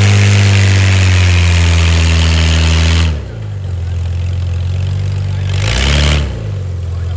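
Modified off-road 4x4's engine revving hard under load as it climbs a dirt bank, held high for about three seconds and then dropping. A second short rev comes about six seconds in, and the engine then settles to a lower steady note.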